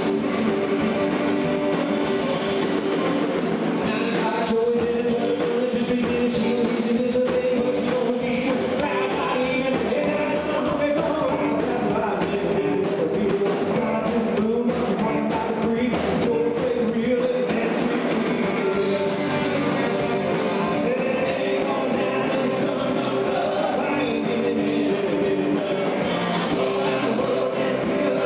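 A band playing an upbeat rock-and-roll style song, with a singer and guitar.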